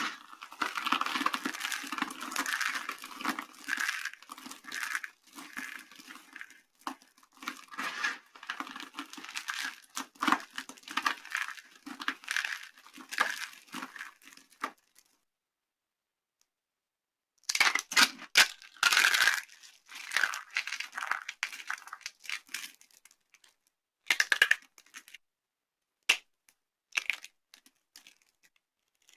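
Dry soap being crushed and crumbled by hand, a dense run of crunching and crackling. It stops dead for a couple of seconds midway, then resumes with a few loud sharp cracks and scattered shorter crunches.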